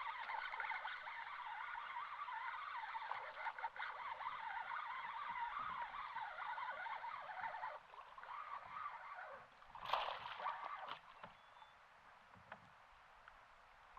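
Many birds singing together in a dense, warbling chorus that drops away suddenly about eight seconds in, followed by a short sharp noise about two seconds later.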